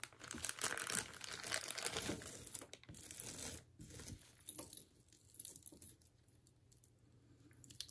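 Packaging crinkling and rustling as a necklace is unwrapped by hand. It dies down after about four seconds into a few faint clicks and clinks as the glass-bead necklace is handled.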